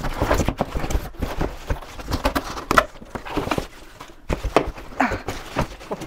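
Cardboard box and packaging being handled: irregular knocks, scrapes and rustles, with a few short squeaks, as flaps are bent and parts are pulled out of the box.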